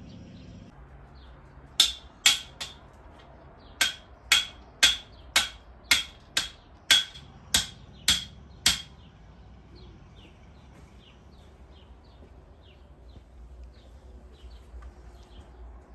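A hammer striking a metal garden stake, driving it into the bed's soil: about a dozen sharp blows, roughly two a second, in a burst of three and then a steady run, stopping about nine seconds in. Faint bird chirps follow.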